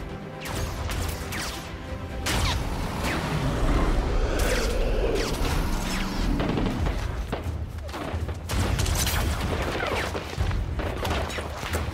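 Action-film soundtrack: a dramatic film score with a deep, heavy rumble underneath, mixed with repeated sudden impacts and whooshing sweeps of a chase sequence.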